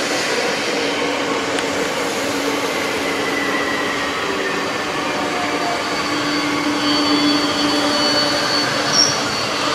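Double-deck TER electric multiple unit passing close by, with a container freight train rolling past behind it: a steady rush of wheels on rail carrying several steady whining tones, and a brief high squeak about nine seconds in.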